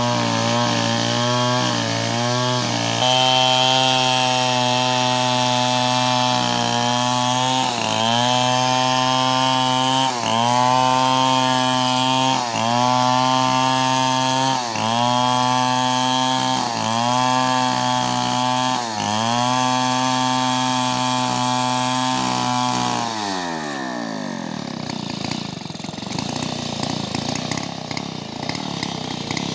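STIHL chainsaw running at full throttle, ripping a coconut-palm log lengthwise, its engine note dipping briefly about every two seconds as the bar bites. About 23 seconds in the revs fall away and the saw drops off the cut.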